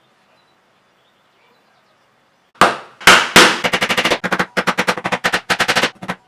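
Background music kicks in after a near-silent start: three loud, sharp pitched hits, then a fast, even run of pulses at about seven a second.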